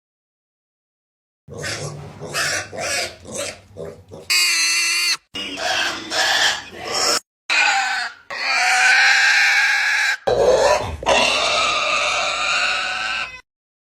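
Pig sound effects: a quick run of short grunts, then several long high squeals, each clip cut off abruptly and followed by the next.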